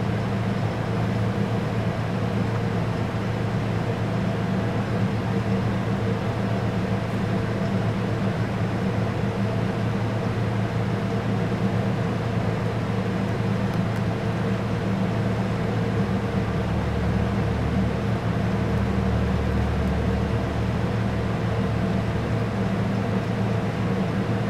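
A steady low machine hum with a hiss over it, unchanging throughout.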